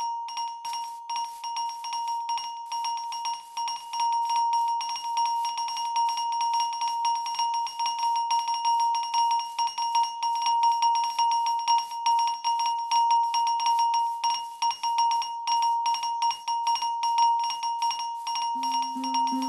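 Fire alarm bell ringing continuously, its striker hammering rapidly on the gong to give a steady ringing tone with a fast clatter. A second, lower-pitched pulsing alarm tone joins about a second before the end.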